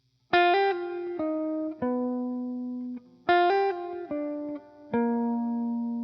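Background music: a guitar plucking a short melodic phrase of ringing notes, played twice.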